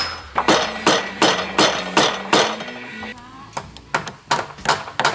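Claw hammer driving nails through metal joist hangers into wooden roof rafters: steady blows about two or three a second. After a short break about three seconds in, a second run of hammering follows, quicker and a little lighter.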